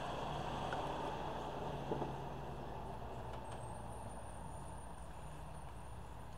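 A truck engine running in the street, gradually fading as it moves away, with a couple of light clicks about two seconds in.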